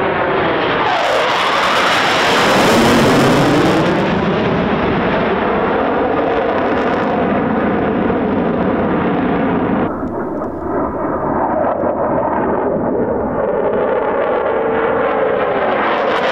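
Eurofighter Typhoon's twin EJ200 turbofan jet engines during a dry strafing pass, with no cannon fired. The loud, continuous jet noise peaks and turns harsh and crackling about two to four seconds in as the jet passes closest. The pitch sweeps as it goes by, the sound dips briefly around ten seconds in, and a falling tone comes near the end.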